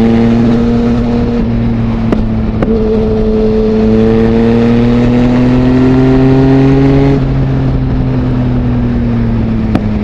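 Yamaha MT-09 inline-three engine through an Akrapovic full-system exhaust with no dB killer, heard from the rider's helmet while riding. It pulls steadily with the pitch slowly climbing, then the throttle eases off about seven seconds in and the note drops a little, with wind noise throughout.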